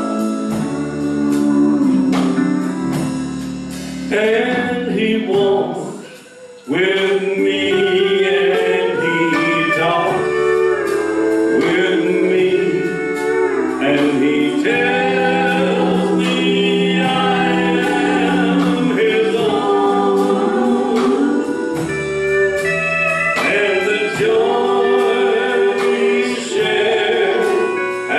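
Live church band playing a gospel song: electric bass, drums and guitar, with a man and women singing into microphones. The opening seconds are instrumental; the voices come in about four seconds in, drop out briefly near six seconds, and carry on to the end.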